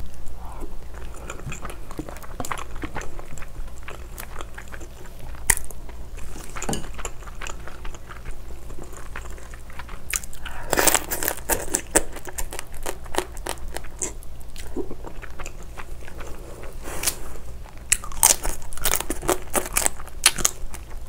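Close-miked eating: biting and crunching through the shell of raw crab marinated in spicy sauce (yangnyeom-gejang), with chewing between bites. Dense runs of sharp crunches come about halfway through and again near the end.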